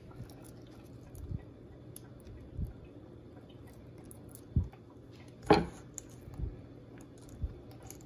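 Soft thumps and light rustling as a whole pineapple is handled and shifted on a wooden cutting board, about six knocks spread out, the loudest about five and a half seconds in.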